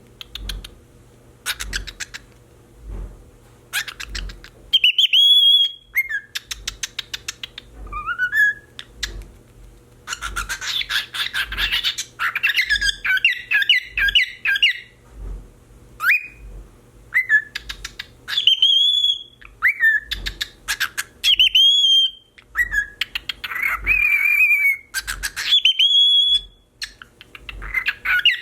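Cockatiel whistling a car-alarm imitation: repeated rising whistled notes, rapid warbling runs of short notes, and short sharp calls in between.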